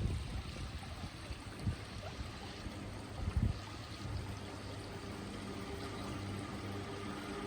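River water running steadily, with a few low thumps in the first half. About halfway through, a passing vehicle's engine hum comes in and grows steadily louder as it approaches.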